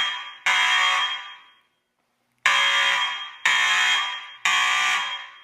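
Fire alarm sounding in the three-pulse temporal (T3) evacuation pattern, set off from a manual pull station: loud blasts about a second apart, a pause of about two seconds, then three more, each starting suddenly and fading away.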